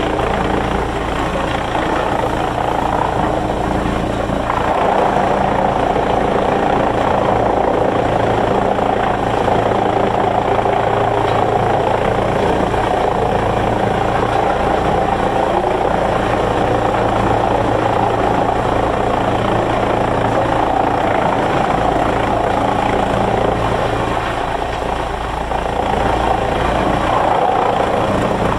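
Sawmill machinery running loudly and steadily: a low motor drone under a dense, mid-pitched rushing noise that grows louder about four seconds in and eases briefly near the end.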